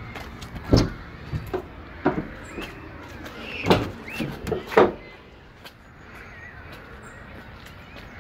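Rear barn doors of a Vauxhall Combo van being unlatched and swung open: a run of clicks and clunks from the handle, latch and doors over the first five seconds, the loudest clunks near the middle.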